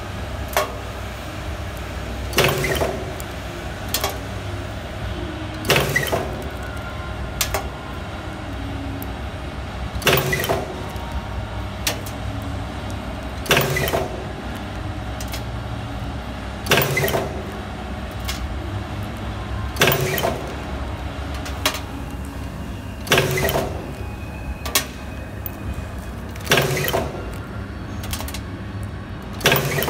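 Cable-tie barb inserting machine cycling: a sharp pressing stroke about every three seconds as a stainless steel barb is set into each hand-fed nylon cable tie, with lighter clicks between strokes over a steady low hum.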